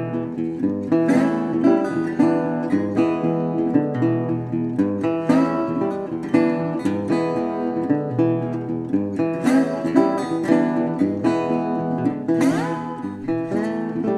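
Background music: acoustic guitar played with plucked and strummed notes and some sliding notes.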